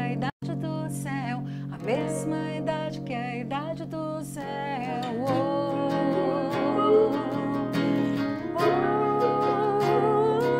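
A woman singing held, wavering notes with acoustic guitar and electric guitar accompaniment. The sound drops out for an instant just after the start.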